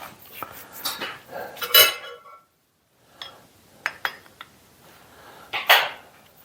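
Metal parts clinking and knocking as a machined steel stop collar is handled and fitted onto a drill press quill. There is a loud ringing clink about two seconds in and another near the end, with lighter taps between.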